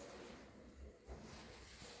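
Near silence: faint room tone with a few tiny rustles.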